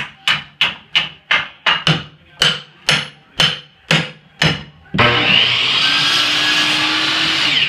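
A hammer striking again and again, about two blows a second, as old wood flooring is torn up along a wall. About five seconds in, a loud steady mechanical whir starts and keeps going.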